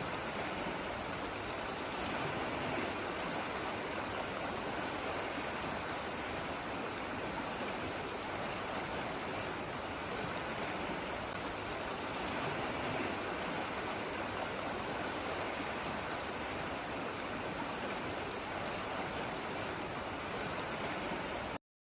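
Waterfall: steady rushing of falling water, which cuts off suddenly near the end.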